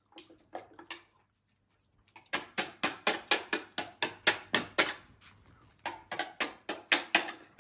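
A rapid run of sharp clicks or taps, about five a second, in two bursts with a short break between them.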